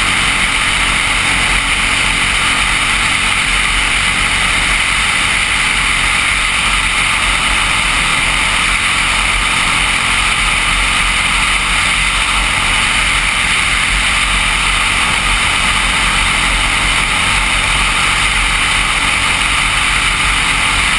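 Briggs & Stratton LO206 single-cylinder four-stroke kart engine running steadily at racing speed, heard on board with loud wind rush over the microphone.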